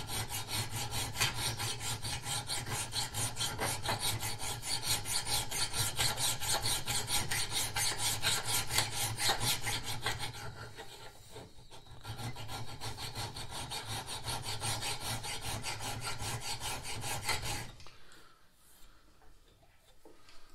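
Hand file scraping back and forth across the steel edge of a chipper-shredder blade clamped in a vise: quick, steady rasping strokes that sharpen it to a straight, even edge. The filing pauses briefly a little past halfway and stops a few seconds before the end.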